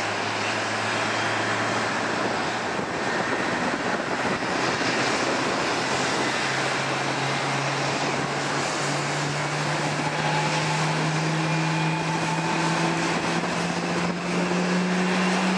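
Steady jet aircraft noise from a Boeing 777-300ER being pushed back by a tug, with a low hum that climbs slowly in pitch.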